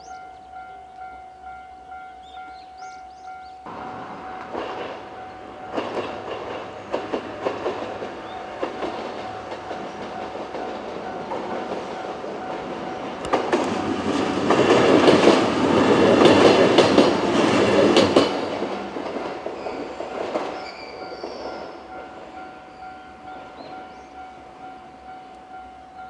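JR 103 series two-car electric train passing over a level crossing, its wheels clacking over the rail joints. It builds up, is loudest about two-thirds of the way through, and then fades away. The crossing's warning alarm dings steadily throughout.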